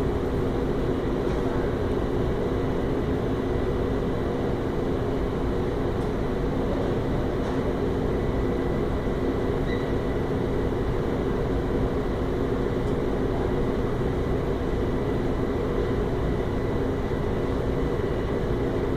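School fire alarm horns sounding one steady, unbroken drone.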